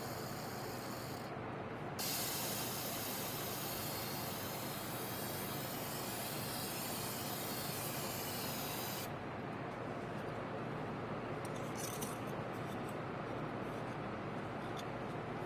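Aerosol can of Krylon silver metallic spray paint spraying onto water in a tub. A short hiss ends about a second in; a long steady hiss starts about two seconds in and stops about nine seconds in. Light handling clicks follow.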